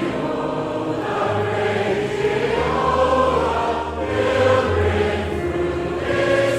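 Choir singing a hymn in held notes over a low bass accompaniment.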